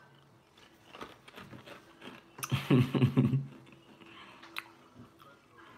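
Dry Froot Loops cereal being crunched and chewed by mouth: many small, crisp crunching clicks. About two and a half seconds in comes a brief muffled vocal sound, the loudest moment.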